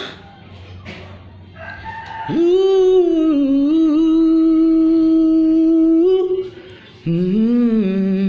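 A man singing a pop ballad in a high voice, holding one long note for nearly four seconds from about two seconds in. After a short break he takes another long note near the end.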